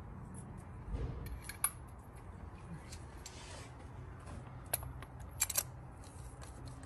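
Spark plug socket and extension clinking against metal as a new spark plug is fed down into the plug well of the B58 engine: a few scattered sharp metallic clicks, with a cluster near the end, over a steady low hum.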